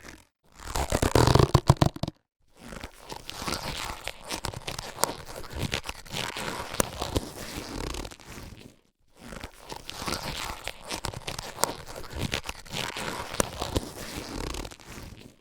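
Latex surgical gloves being handled and rubbed. A louder burst comes about a second in, then two long stretches of steady rubbing with scattered small clicks, split by a brief pause about nine seconds in.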